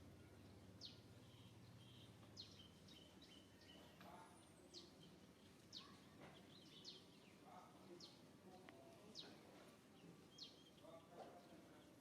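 A small bird chirping faintly and repeatedly, short high chirps that each fall sharply in pitch, about one a second.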